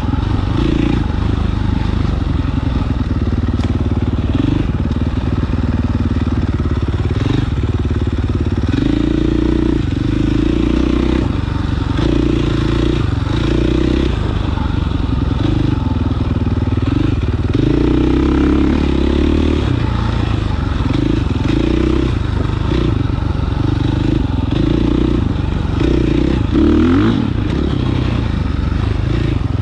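Dirt bike engine running while being ridden, its revs rising and falling as the throttle opens and closes, with a short climbing rev near the end.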